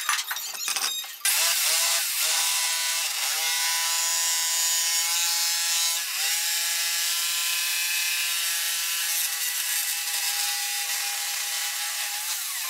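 Corded electric jigsaw sawing a curve through pallet boards. It starts about a second in after a few knocks, then runs with a steady whine whose pitch dips briefly twice.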